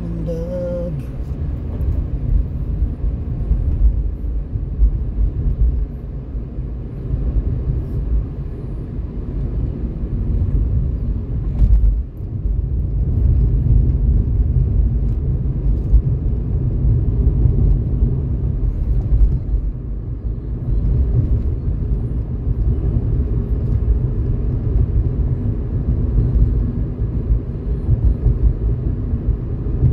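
Car interior noise while driving: a steady low rumble of engine and tyres on the road, dipping briefly about twelve seconds in.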